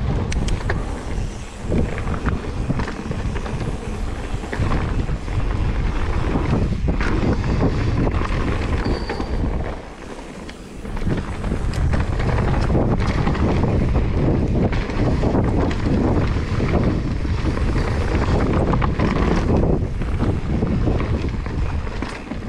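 Mountain bike ridden fast down a dirt forest trail: wind rushing over the camera microphone, with tyre rumble and short knocks and rattles from the bike over bumps. It eases off for about a second near the middle, then picks up again.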